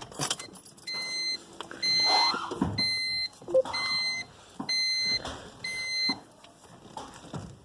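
Car's electronic warning chime beeping six times at a steady pitch, about once a second, the kind a Honda Civic sounds with the key in the ignition and the driver's door open. Light handling and rustling noises come between the beeps.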